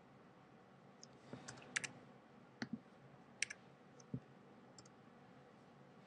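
Scattered, fairly quiet clicks and taps of a computer keyboard and mouse, about a dozen between one and five seconds in, over a faint hiss.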